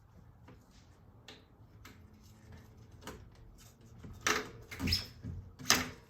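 Light knocks and clunks of bicycle parts and tools being handled during a fork install, ending in three loud sharp knocks about half a second to a second apart.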